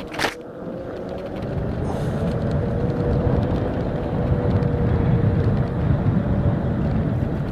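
HappyRun F18 electric bike's hub motor whining steadily on a single tone while riding, under a low rumble of wind and road noise. A sharp click comes just after the start.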